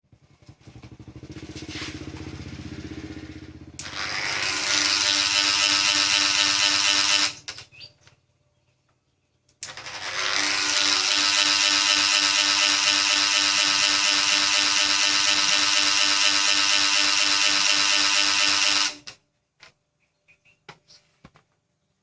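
Electric fan motor running with a loud, high whir and squeal, starting up quieter at first, cutting out about 7 seconds in, then starting again about 10 seconds in and running until it stops near the end.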